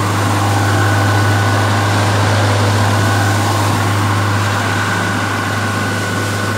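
A boat's engine running steadily under way, a constant low hum, over the rush of water and wind.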